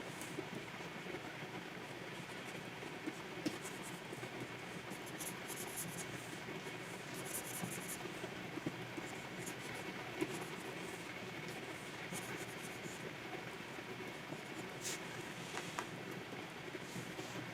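Plastic pen nib scratching across a Wacom pen display's drawing surface in short runs of strokes, with a few sharp taps of the pen.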